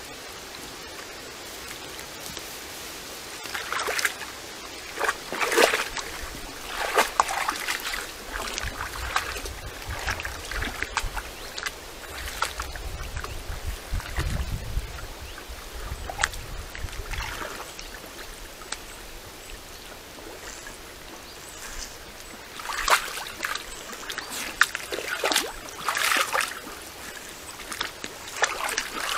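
Red deer hinds wading through a shallow pond, water splashing and sloshing around their legs in irregular bursts, busiest about a quarter of the way in and again near the end. A low rumble comes about halfway through.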